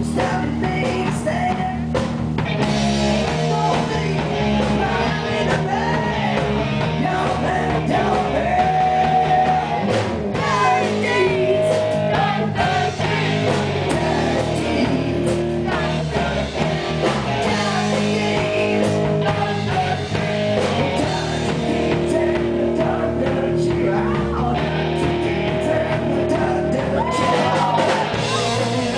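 Live rock band playing: a male singer over electric guitars and a drum kit.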